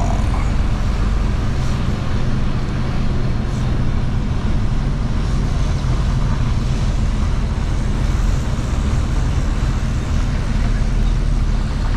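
Truck's diesel engine running with a steady low hum, heard from inside the cab together with road noise.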